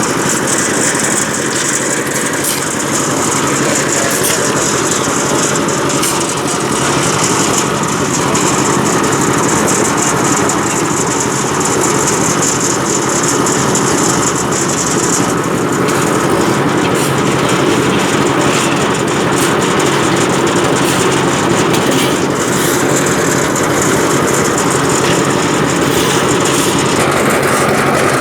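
Concrete mixer machine's engine running steadily, with a dense hiss and small rattles over it.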